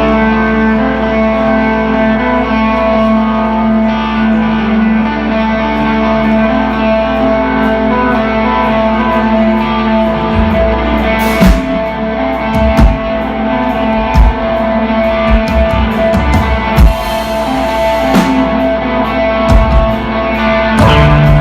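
Live instrumental rock band playing: electric guitar and bass ring out long held notes. About halfway through the drum kit comes in with kick drum hits and cymbal crashes, and the playing gets busier near the end.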